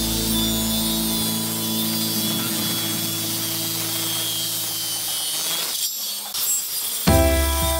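An electric woodworking power tool running steadily against wood, then stopping about six seconds in. Music with a beat starts near the end.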